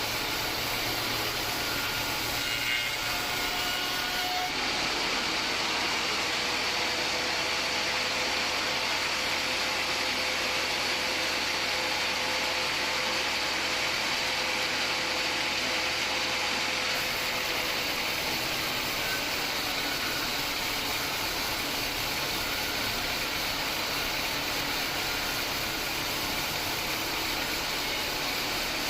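Homemade band sawmill running steadily, with an even mechanical drone.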